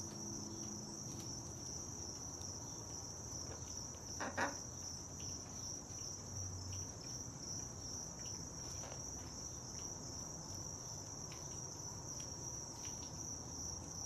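A steady, high-pitched insect trill, with one brief louder sound about four seconds in.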